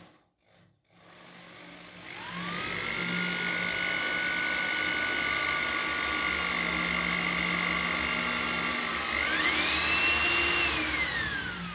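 Electric drill boring through the steel plate of a caster wheel into a steel leg with a dull bit: the motor spins up and runs at a steady whine under load, rises in pitch about nine seconds in, then winds down near the end as it is switched off.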